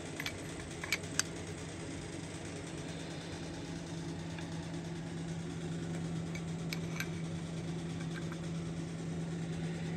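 Steady low hum throughout, with a few light metallic clicks about a second in and again near seven seconds as a wrench turns the freshly installed Ford 302 crankshaft by hand on its snout bolt.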